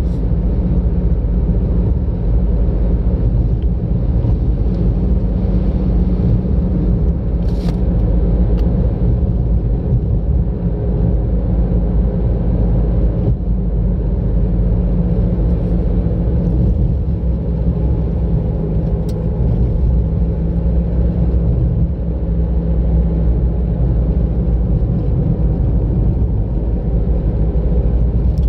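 Car driving along a road: a steady low rumble of engine and tyres. A single sharp click about seven seconds in.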